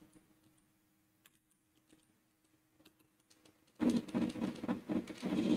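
Computer keyboard being typed on: a few faint, scattered key clicks, then a dense run of rapid keystrokes starting about two-thirds of the way in.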